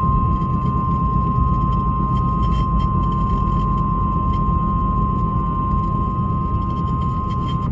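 Emergency Alert System attention tone heard on FM radio: a single steady high tone that cuts off near the end, signalling that an emergency message follows. A steady low rumble lies underneath.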